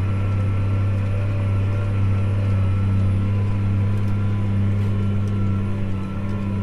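Tractor diesel engine running steadily at full throttle under heavy load while pulling a chisel plow about 15 inches deep, a deep even drone with a faint steady whine above it.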